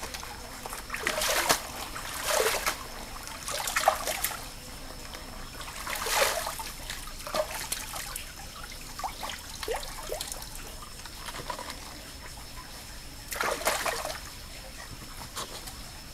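Lettuce leaves being washed by hand in a shallow stream: a handful of splashes and sloshes as the leaves are dunked and shaken in the water, with dripping between them.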